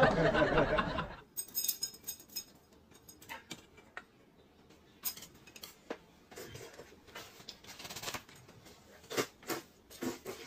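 Table and eating noises: scattered light clicks and taps of chopsticks and tableware, with a woman slurping rice noodles from a paper cup near the end. A short voice-like sound fills the first second.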